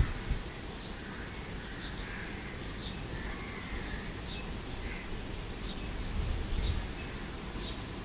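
A small bird repeats a short, high, falling chirp about once a second, over a steady low outdoor rumble.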